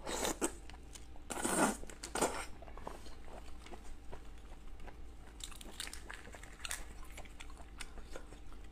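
Close-miked eating of raw red shrimp: three loud bites in the first two and a half seconds, then quieter chewing with scattered small clicks.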